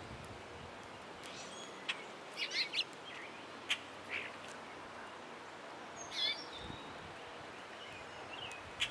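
Songbirds at a feeder giving a few short, wavering chirps and calls, scattered through a few seconds, with several sharp clicks between them.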